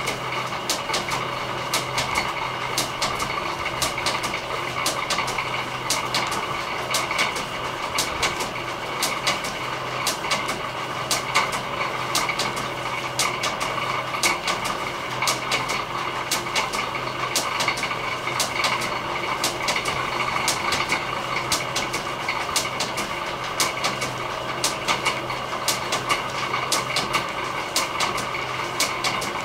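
Workshop belt drive running: an electric motor driving belts and pulleys that carry power to the machines. It makes a steady mechanical hum with a few steady tones, and frequent irregular clicks run through it.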